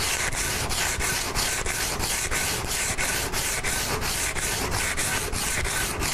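Sandpaper rubbed by hand along a wooden chair rail in quick back-and-forth strokes, about four to five a second, sanding off excess wood filler before staining.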